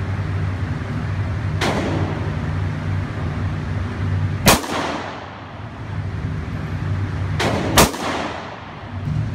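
Handgun shots fired at an indoor range: a fainter shot about two seconds in, a loud one near the middle, and a close pair near the end, each with a short echoing tail. A steady low hum runs underneath.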